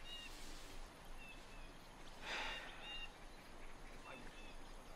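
Faint background ambience with birds chirping softly: short, high chirps recurring every second or so. A brief soft rustle comes about two seconds in.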